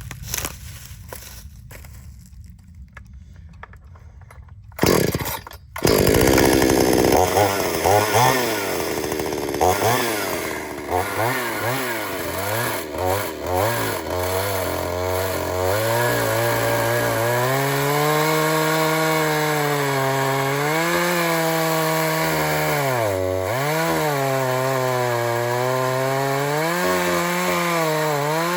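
Gas chainsaw starting about five seconds in, after a short loud burst, then running and cutting through a log. Its engine pitch sags under load and picks back up again and again.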